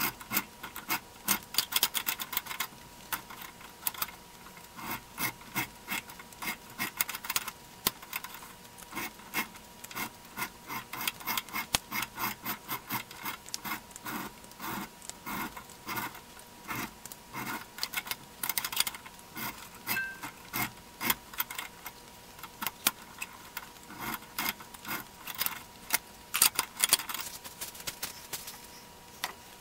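Hacksaw blade and small hand file scraping along the square threads of a steel C-clamp screw, clearing torch scale, burrs and excess silver solder. Quick, uneven rasping strokes, two or three a second, with short pauses between runs.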